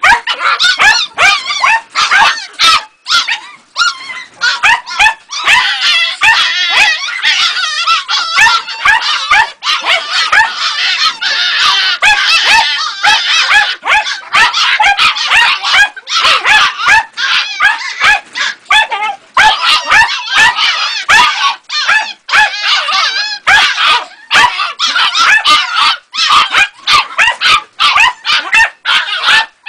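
A young Jagdterrier puppy and a red fox in a wire cage yelping, whining and screeching almost without pause. The calls come fast and high-pitched, wavering up and down.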